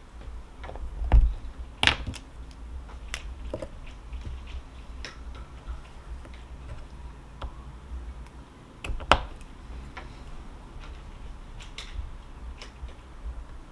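Irregular small clicks and taps, as of objects handled on a desk, with a dull thump about a second in and sharper clicks about two and nine seconds in, over a steady low rumble.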